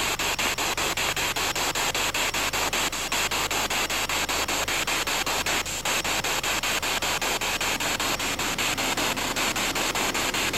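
SB7 spirit box sweeping through radio frequencies: a steady hiss of static chopped into rapid, even pulses.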